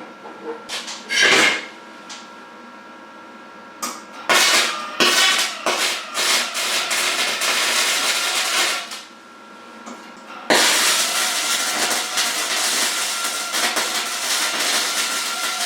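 Welder joining a steel cross brace: a few metal knocks, then two welds, one from about four to nine seconds in and a second that starts suddenly about ten and a half seconds in and runs steadily on.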